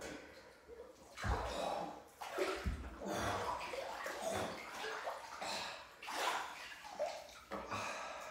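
Water sloshing in an ice-cold bath as a person shifts and rises in the tub, in irregular splashy bursts, with two dull low thumps about one and two and a half seconds in.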